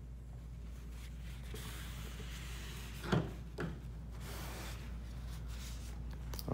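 Cloth rubbing with a soft hiss over a steady low room hum. Two light knocks, about half a second apart, come near the middle.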